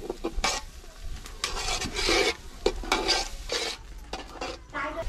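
Metal ladle stirring and scraping thick masala paste around a metal cooking pot, in a run of uneven rasping strokes, with a faint sizzle as the ground masala fries in oil for chicken curry.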